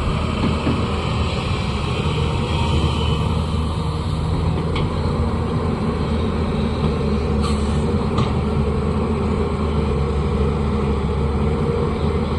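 Diesel engine of an earthmoving machine (backhoe loader or excavator) running steadily, with a few short sharp clicks or knocks about halfway through.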